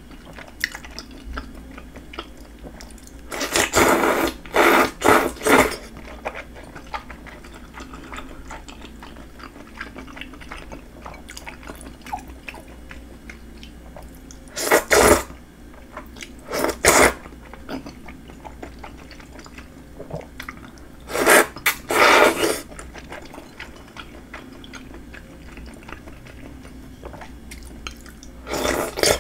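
A person slurping thick Chinese glass noodles in spicy sauce, close to the microphone: groups of loud short slurps come about 4 s, 15 s, 17 s, 22 s and 28 s in, with quiet chewing between them.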